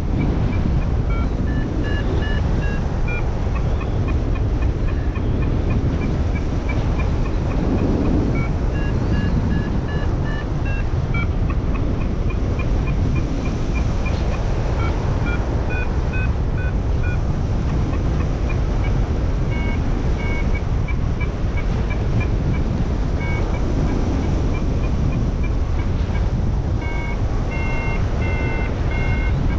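Paragliding variometer (XC Tracer Maxx) beeping in a quick series of short tones that shift in pitch: the climb tone, a sign the glider is rising in lift. Steady wind rushes on the microphone underneath, and the beeps grow louder near the end.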